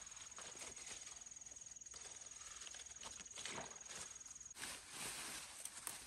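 Leaves and stems rustling and crackling softly as taro plants are handled and picked by hand, with a louder rustle about two-thirds in. A thin, high, steady tone sounds until then.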